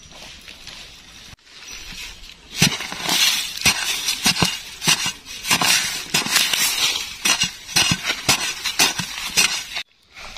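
A digging tool chopping into earth in quick repeated strokes, about two a second, with soil scraping and crumbling between the blows, as a cricket burrow is dug out.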